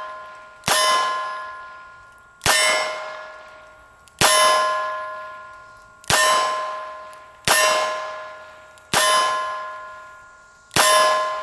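Smith & Wesson Model 617 .22 LR revolver fired in slow, steady double action, seven shots about one and a half to two seconds apart. Each crack is followed by a steel target ringing at the same clear pitches and fading away.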